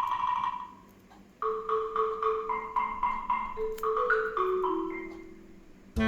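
Background music: a light mallet-percussion tune, like a marimba, with quick repeated notes over a bass line that steps downward.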